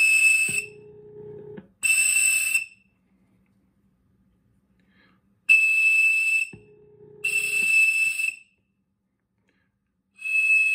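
Cap'n Crunch toy whistle, one hole blocked so it gives a 2600 Hz tone, blown into a headset microphone in short blasts of under a second each to seize a long-distance telephone trunk. There are two blasts, two more about three seconds later, and one near the end. A lower steady tone sounds twice in between.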